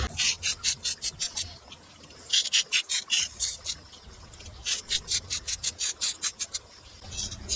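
Rapid back-and-forth scraping or rasping strokes from a hand tool, about six a second, in three runs separated by short pauses.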